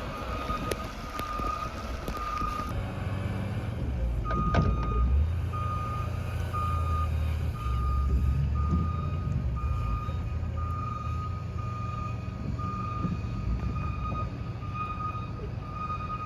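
A vehicle's backup alarm beeping steadily at one pitch, about two beeps a second, over a low engine rumble that grows louder about three seconds in. A single knock sounds about four and a half seconds in.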